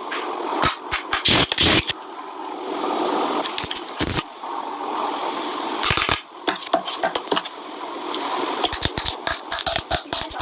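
Makeup packaging and cosmetic cases handled close to the microphone: irregular clicks and taps with rustling in between.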